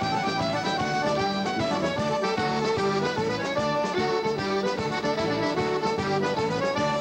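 A Newfoundland traditional dance tune played live by a band: button accordion and fiddle carry the melody over acoustic guitar, bass guitar and drums, with a steady driving beat.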